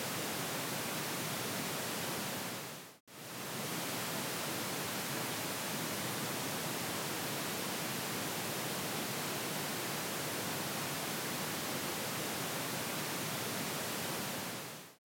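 Steady pink-noise test signal of a 5.1 surround sound check: an even hiss that fades out and straight back in about three seconds in, then fades to silence at the end.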